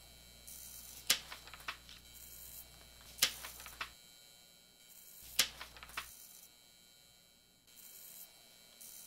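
Sheets of paper being handled on a desk: three sharp papery snaps about two seconds apart, each followed by a few smaller rustles, over a low steady hum that stops about two-thirds of the way through.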